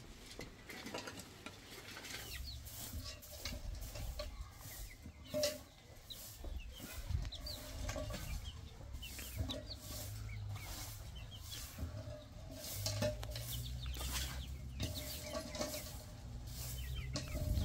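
Metal shovels scraping and digging into dry, packed dirt in irregular strokes, with a straw broom sweeping the ground near the end. Chickens cluck now and then.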